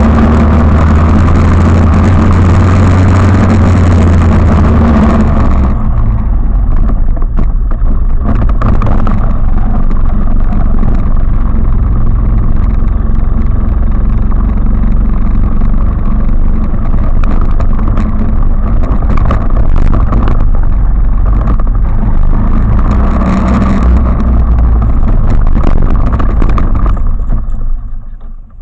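A 250 cc quad bike's engine running while ridden, held at high, steady revs for the first few seconds, then dropping to a lower, rougher note with many short knocks for most of the ride, and falling away sharply near the end.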